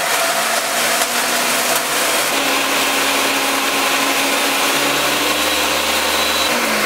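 Countertop blender grinding dry, oven-baked banana peels into a granulated powder: a loud, steady motor whir with grinding noise. The motor pitch steps up about two seconds in as the speed is turned from low to high.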